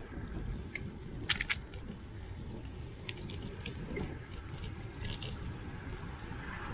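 Steady wind and road rumble from a bicycle rolling along asphalt, with a few sharp clicks about a second in and lighter ticks midway.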